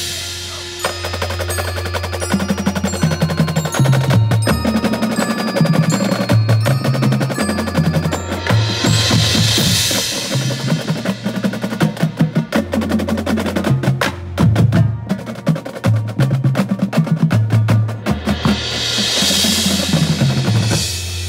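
Marching percussion ensemble playing: drumline snares, tenor drums and bass drums with front-ensemble marimbas and vibraphones, over held low bass notes. Two swelling washes of cymbal build and fade, about nine and nineteen seconds in.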